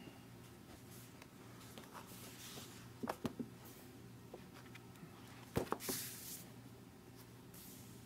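Pages of a large book handled and turned: faint paper rustles with a few sharp clicks about three seconds in and a louder click and paper swish about five and a half seconds in, over a steady low hum.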